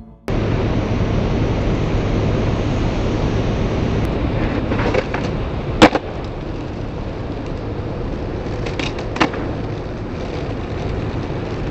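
Skateboard wheels rolling over asphalt with a steady rumble, broken by a loud sharp crack of the board striking the pavement about six seconds in and a smaller crack about three seconds later.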